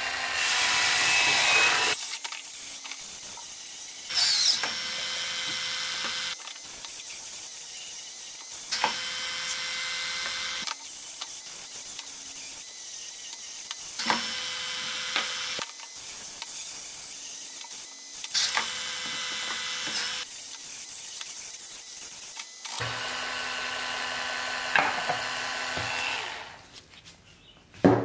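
Dremel Versa battery power scrubber, its spin brush running and scrubbing plastic toy parts in soapy water: a steady motor whine with a brushing hiss, changing every few seconds as the brush is pressed on and shifted. It stops a little before the end, followed by a single knock.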